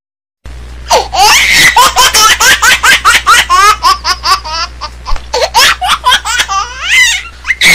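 Laughter sound effect edited in: rapid, high-pitched repeated laughs starting about half a second in over a steady low hum, cut off abruptly at the end.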